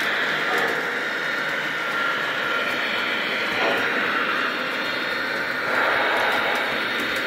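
O-gauge model steam locomotive's onboard sound system playing a steady steam hiss, swelling louder near the end.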